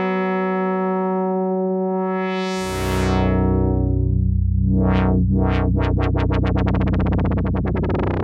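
Sequential Prophet-6 analog polyphonic synthesizer playing a held chord. About two and a half seconds in a deep bass note joins with a filter sweep that brightens and closes again. From about five seconds on the tone pulses brighter over and over, the pulses quickening as the modulation speeds up.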